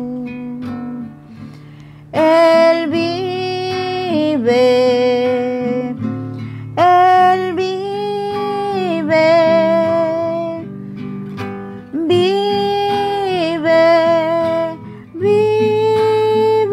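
Slow devotional hymn: acoustic guitar under a sung melody in long held phrases that begin about every five seconds.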